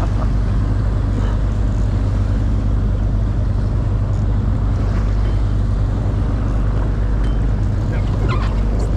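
Boat engine running with a steady low hum, over wind and water noise.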